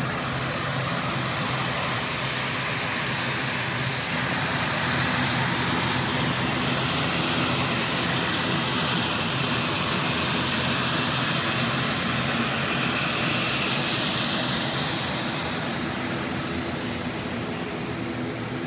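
Turboprop airliner's engines running steadily: a loud low drone under a broad hiss that swells a little midway.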